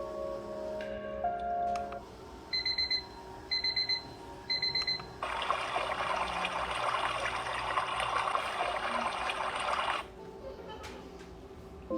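Sunrise alarm clock playing its built-in alarm sounds through its small speaker: the end of a short tune, then three short bursts of rapid high beeping about a second apart, then about five seconds of running-water nature sound that cuts off suddenly.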